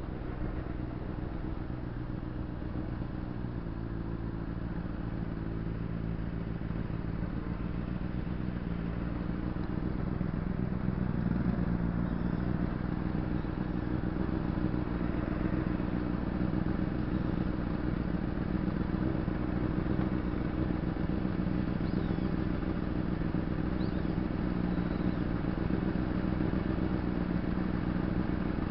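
Honda CBR600RR's inline-four engine easing down as the bike slows, then idling steadily once it has stopped, from about ten seconds in.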